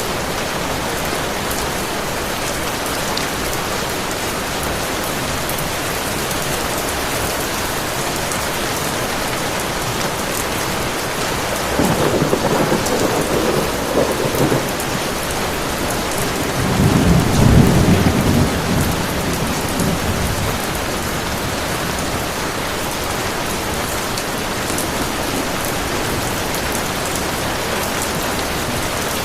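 Steady heavy rain with thunder rumbling twice: a first roll about twelve seconds in, then a louder, deeper one a few seconds later.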